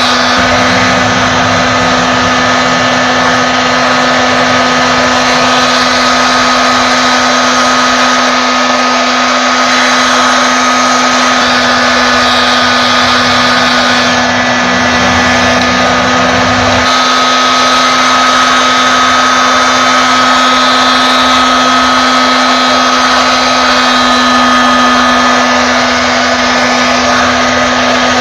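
Hot air gun running steadily, a loud even rush of air with a steady hum and faint whine, blowing onto bumper plastic to soften it for welding.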